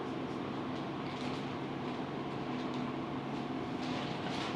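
Ventilator's medical air compressor running with a steady hum.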